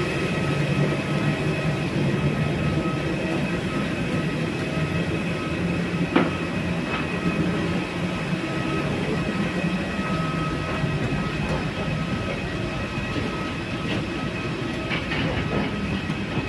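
Steady rolling rumble of wheeled suitcases and footsteps along an airport jet bridge floor, over a constant mechanical hum, with a single sharp knock about six seconds in.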